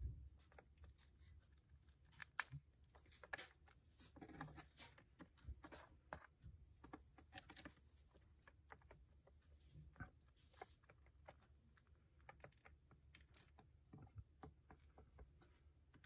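Lutino cockatiel pecking at pellets in a ceramic dish: quiet, irregular small clicks and taps of beak on pellets and china, the sharpest about two and a half seconds in.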